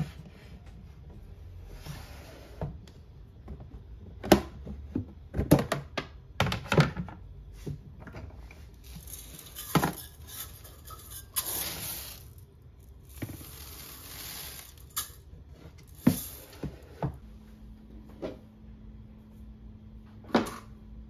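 Hard plastic knocks and clicks of a rice storage bin's lid being lifted and set back, with stretches of rustling and scraping in between. Another sharp knock comes near the end, and a faint steady hum starts about three-quarters of the way through.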